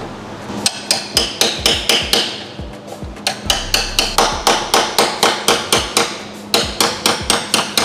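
Hammer blows on a car's metal front body panel, a steady run of sharp strikes about four a second, with two short breaks, as the glued and spot-welded panel is worked loose.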